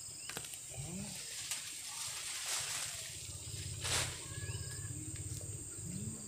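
Steady high insect drone in a rural garden, with scattered short bird-like chirps, and two brushy scraping swells, about two and a half and four seconds in, from hands and tools working loose soil.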